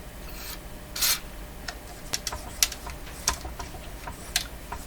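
Irregular light clicks and taps of small objects being handled at a workbench. A short hiss comes about a second in, all over a steady low electrical hum.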